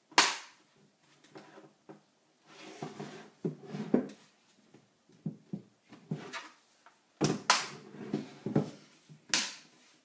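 Plastic snap clips of an Acer ES1-511 laptop's keyboard deck popping into the bottom case as the edges are squeezed together: one sharp snap at the start, two in quick succession about seven seconds in, and another near the end. Hands handle and rub the plastic case in between.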